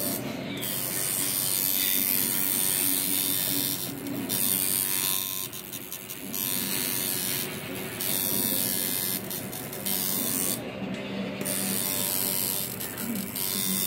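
Coil tattoo machine buzzing as it works ink into skin, running in spells with several brief stops.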